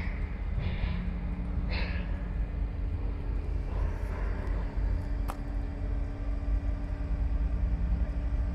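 Mobile crane's engine running steadily while it holds a steel truss beam aloft, a low rumble with a steady hum. A brief burst of noise about two seconds in and a single sharp click about five seconds in.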